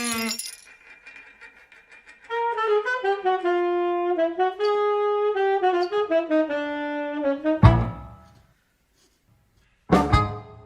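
Cartoon stock sound effects: a wandering comic saxophone melody of stepping notes starting about two seconds in, then a sudden hit, and a second hit with a ringing tone near the end.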